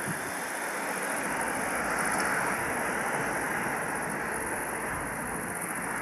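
Transall C-160D's two Rolls-Royce Tyne turboprop engines droning steadily as the transport aircraft comes in on final approach, growing a little louder over the first couple of seconds.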